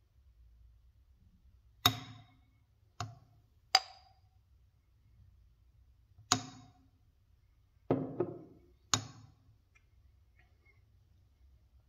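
A metal spoon knocking and clinking against a glass jar and a stone mortar while honey is scraped out. About six sharp taps come a second or two apart, some with a short ring.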